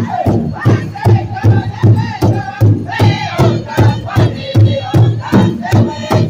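Powwow drum group: several men singing together in high, strained voices over a large rawhide drum that they strike in unison. The drum keeps an even beat of about two and a half strokes a second.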